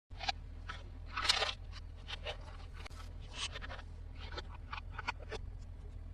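Close-up handling of toy packaging: scattered small clicks and crinkles, with one longer rustle about a second in, over a low steady hum.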